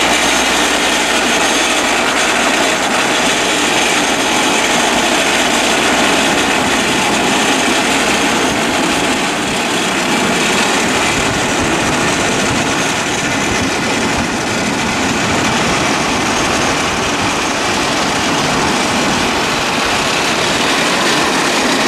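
A small homemade chain-driven rail cart (draisine) running along the track, its wheels clattering steadily on the rails.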